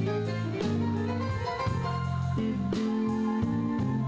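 A live blues band playing: electric guitar over a walking bass line and drums keeping a steady beat.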